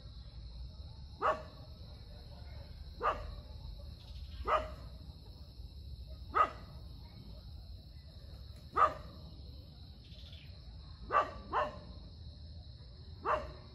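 Short, sharp animal calls, eight in all, each falling slightly in pitch and coming every one and a half to two and a half seconds, with two close together about eleven seconds in. A steady high-pitched drone runs underneath.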